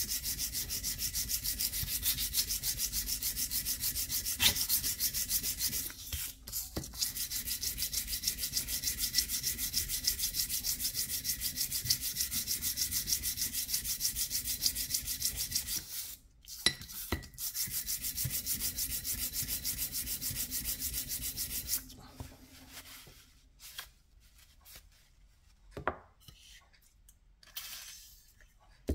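A Dnepr 650 tappet being lapped by hand on sandpaper over a flat steel plate: quick, even back-and-forth scraping strokes that resurface the worn tappet face. The strokes break off twice briefly and stop about 22 seconds in, followed by a few faint handling knocks.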